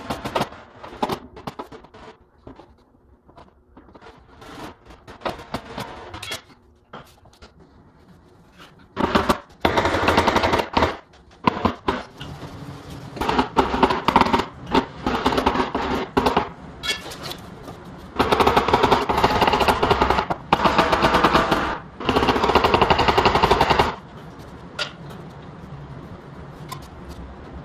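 Bursts of rapid tapping, fast enough to run together like a machine gun, from paintless dent repair tools working the metal of a car body panel. Three long bursts come in the second half, with scattered single taps between them.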